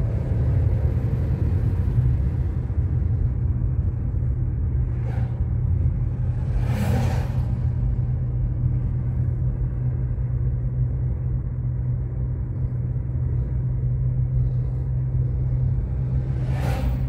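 A car being driven: a steady low rumble of engine and road noise. Brief whooshes come about five and seven seconds in and again near the end.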